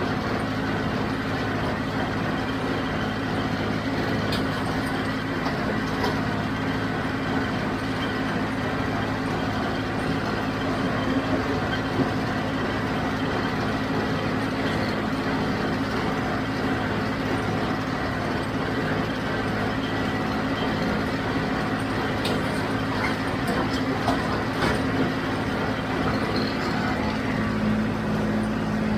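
John Deere 5055D tractor's three-cylinder diesel engine running steadily under load while powering a John Deere 348 square baler, with a few brief sharp clicks or knocks from the machinery.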